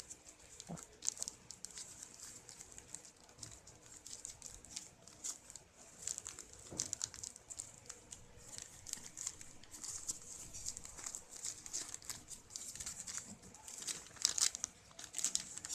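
Gift packaging being unwrapped by hand: irregular crinkling and rustling, louder crackles near the end.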